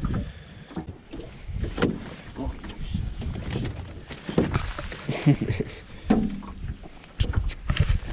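Irregular knocks and clatter of a landing net and gear against an aluminum boat hull as a caught walleye is handled, with a few sharper knocks near the end, over low wind and water noise.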